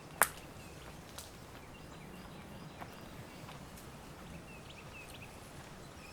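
Quiet woodland ambience with a steady low background hush. A single sharp snap stands out about a quarter second in, followed by a few much fainter ticks and some faint, short, high chirps.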